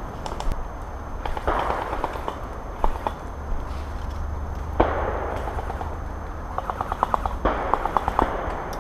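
Airsoft guns firing: scattered sharp pops and short bursts of rapid automatic shots, the quickest run of about seven shots in half a second coming near the end, mixed with rustling from close movement against camouflage netting.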